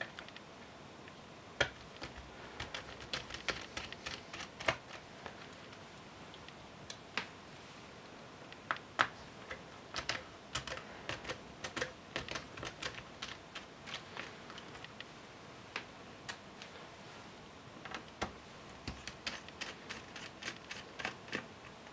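Faint, irregular clicks and ticks of a precision Torx T5 screwdriver working the small screws out of a Dell XPS 13 laptop's aluminium base panel, with a few louder clicks among them.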